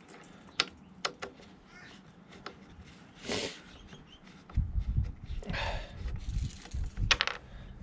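Light clicks and knocks of lawnmower engine parts being handled as the air filter box is worked loose, with a short scraping sound about three seconds in. From about halfway through, a louder low rumbling noise takes over, with a couple of sharp clicks near the end.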